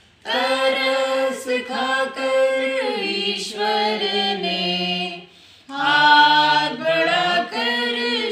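A small group of men and women singing a Hindi penitential hymn in unison without accompaniment, with held notes and a brief pause between lines about five seconds in.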